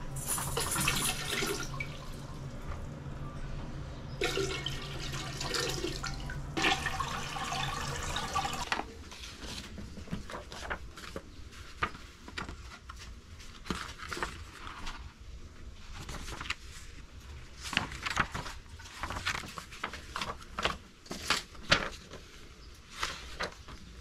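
Toilet water running and trickling in a small tiled bathroom, a steady rush with a low hum that swells for a few seconds. It stops abruptly about nine seconds in, and paper and photo prints are then rustled and tapped down on a flatbed scanner glass, a string of soft clicks and shuffles.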